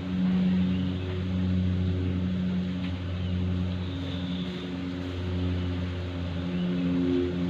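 A honeybee cluster buzzing in a steady, loud drone while the bees are scooped by hand into a hive box.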